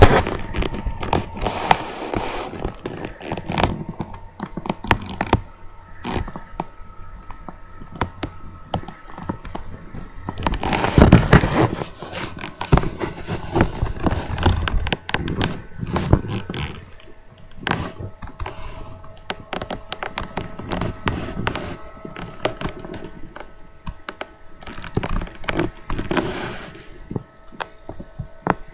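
Close handling noise from a sheet of paper being held and moved against the microphone: irregular knocks, scrapes and rustling, with a louder rubbing burst about eleven seconds in.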